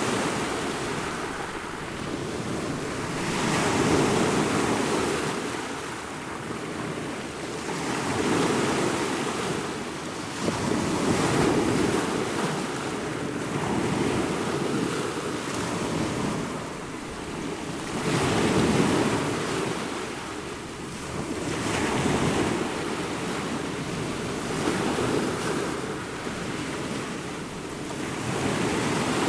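Ocean waves breaking and washing on the shore in a continuous surf, swelling and easing every few seconds.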